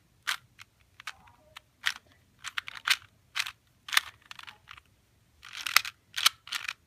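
A 2x2 Rubik's cube being twisted quickly, its plastic layers clicking and clacking irregularly as they turn, several clicks a second with a busier run near the end; it sounds rough.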